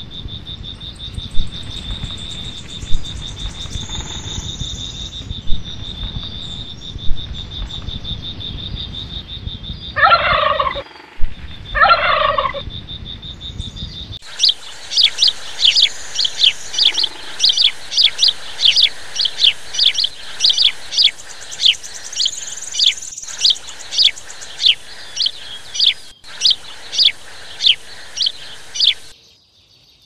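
Forest birdsong ambience. A steady high whine and a low rumble run under two loud falling calls about ten and twelve seconds in. Then, from about halfway, a bird repeats a short falling chirp about twice a second over a steady hiss.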